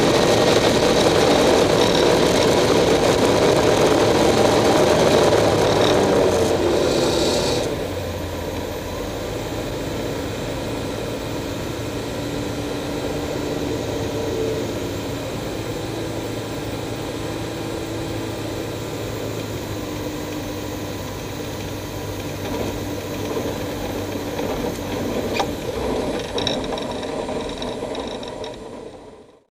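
Engine and propeller of a small open-cockpit aircraft, heard from inside the cockpit: loud at high power for the first seven seconds or so, then dropping to a quieter steady drone. The sound fades out at the very end.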